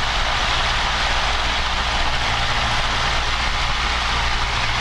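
Cessna 172P's four-cylinder Lycoming O-320 engine and propeller running steadily while taxiing, heard inside the cabin as a low drone under a strong, even hiss.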